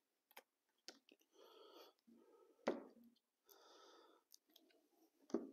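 Near silence: a few faint clicks from handling a plastic wood-glue bottle, with soft breaths in between.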